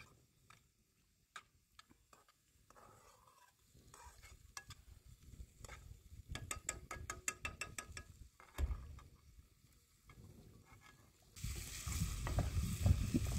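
A spoon stirring chopped onions in a metal pan over a wood fire, with a run of quick clicks and scrapes against the pan. About 11 seconds in, a steady sizzle of onions frying in hot oil starts suddenly and grows louder.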